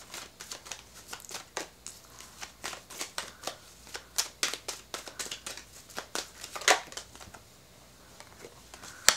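A deck of tarot cards being shuffled by hand, an irregular run of quick soft slaps and clicks, several a second, that stops about seven seconds in. A single sharp click near the end.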